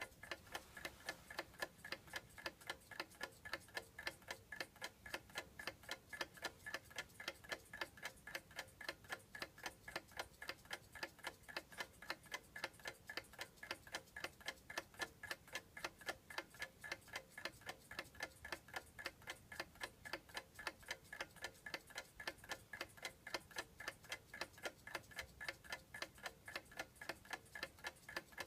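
Mickey Mouse alarm clock ticking steadily, an even, rapid run of sharp ticks.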